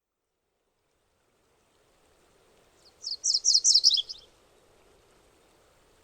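MacGillivray's warbler singing one short song: a quick run of about eight sharp, downslurred high notes, the last ones dropping lower, over a faint steady background noise.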